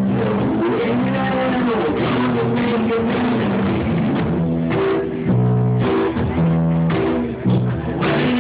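A small band playing an instrumental passage on guitar, bass guitar and drum kit.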